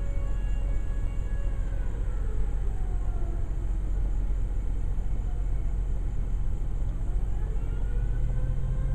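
Distant Federal Signal fire siren, its wail sliding down in pitch over a couple of seconds, then climbing back up near the end, over a steady low rumble.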